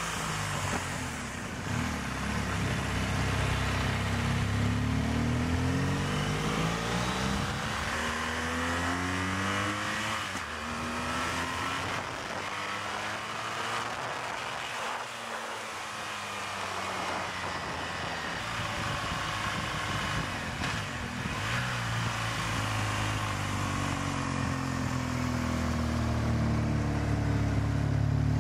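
BMW motorcycle engine heard from on board with wind rush, its revs falling away through the first half and climbing again near the end as it rides through mountain bends.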